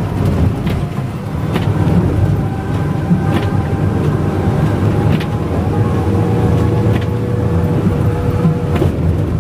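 Intercity bus running at highway speed on a wet road, heard from inside the cabin: a steady low engine drone with road noise and a faint steady whine, broken by a few brief sharp clicks.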